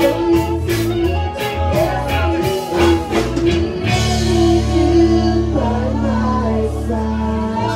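Live rock band playing electric guitars and drums. Drum hits drive the first three seconds, then about four seconds in the drums stop and the band holds one long ringing chord.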